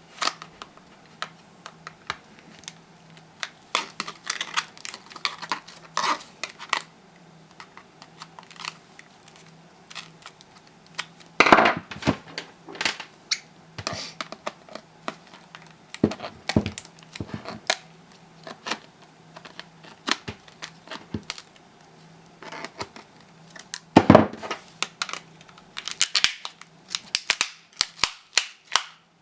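Plastic case of an Acer AS07B31 laptop battery pack being pried apart: an irregular run of sharp clicks, snaps and cracks as the seams and clips give way, with two louder cracks, one near the middle and one near the end.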